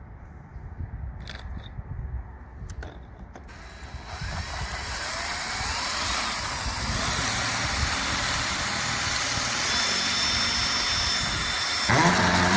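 A few light clicks, then about four seconds in a power drill starts up, rising in pitch, and bores into the masonry wall, growing louder as it goes. Near the end its pitch bends and shifts.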